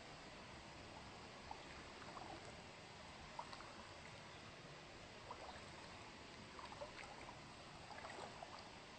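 Faint trickling water over a steady hiss, with small scattered gurgles.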